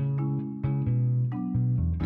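Background music: plucked, guitar-like notes over a bass line.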